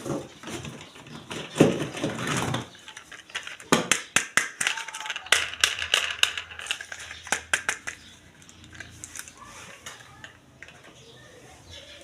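Plastic toys and packaging being handled: a quick run of sharp clicks and clatters, thickest in the middle, then softer rustling.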